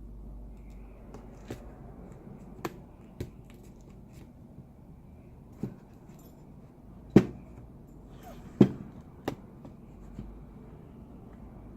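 Scattered sharp clicks and taps of small hand tools against laptop parts while components are seated in a 2016 MacBook Pro. About eight strikes come at uneven intervals, the loudest about seven seconds in, over a low steady hum.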